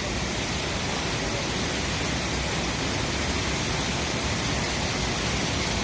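High Force waterfall's steady rush of falling water, an even, unbroken roar.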